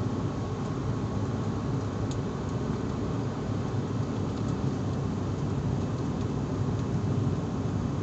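Steady drone of an airliner cabin in flight, heard from inside the cabin: an even, low-heavy rush with a faint high tone running through it early on.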